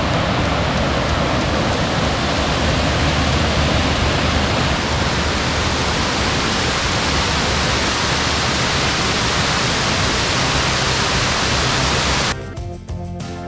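Steady, loud roar of falling water from a waterfall, an even rushing noise with a deep rumble, cutting off abruptly near the end as music comes back in.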